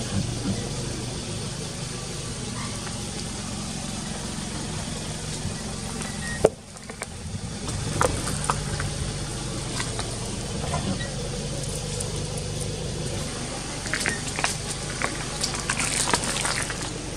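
Car engine idling steadily while its tyre rolls over and crushes bell peppers and other vegetables on concrete, giving crackling crunches. They come scattered in the second half and are thickest near the end. A single sharp click about six and a half seconds in is followed by a brief drop in sound.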